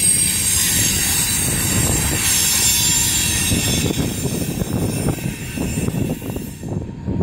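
CSX freight train rolling past: a steady rumble of the cars with high-pitched squealing from the steel wheels on the rails. The squeal fades away over the last second or so.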